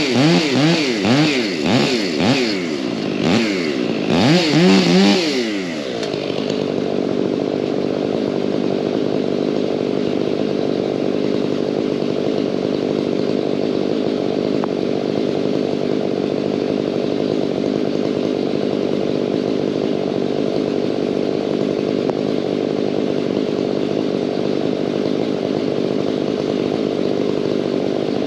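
Two-stroke chainsaw engine revved up and down repeatedly for the first few seconds, then settling about six seconds in into a steady, even run that holds to the end.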